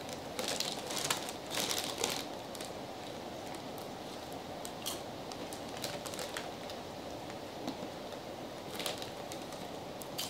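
Crackling of chip bags being handled and crisp chips being crunched, in a cluster of crackles in the first two seconds, scattered clicks, and another cluster about nine seconds in, over a steady hiss.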